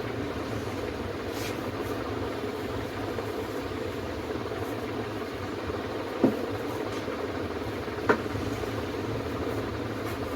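Steady low background noise with two sharp clicks, one about six seconds in and one about eight seconds in.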